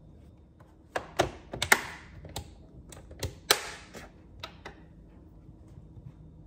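A run of sharp plastic clicks and knocks as an Anova vacuum sealer and its plastic bag roll are handled, about a dozen between one and five seconds in, the loudest near the two-second mark and again about a second and a half later.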